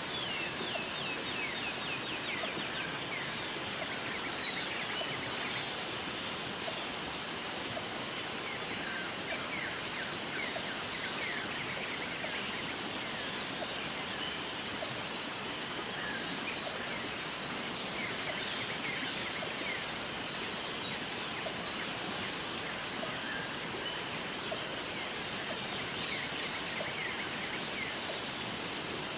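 Jungle waterfall ambience: a steady rush of falling water with birds calling in quick chirping runs, and a high insect buzz that comes and goes every few seconds.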